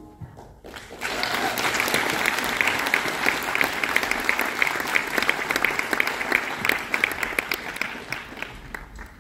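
Audience applauding: clapping breaks out about a second in, stays dense and steady, and thins out near the end.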